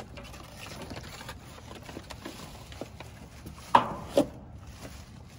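Cardboard and debris rustling and scraping as someone rummages by hand in a dumpster, with two sharp knocks about half a second apart about two-thirds of the way in.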